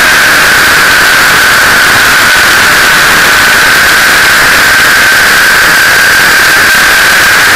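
Onboard sound of a T-Rex 600 radio-controlled helicopter in flight, picked up by a camera on its landing skid: a steady high whine over a very loud, hissing rush of rotor wash and wind, dipping slightly in pitch midway and coming back up.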